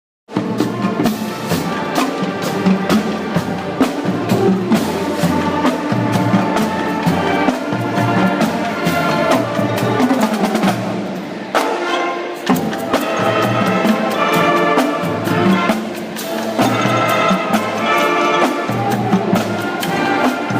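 Band music with brass and drums playing at a steady beat, with a short break about twelve seconds in.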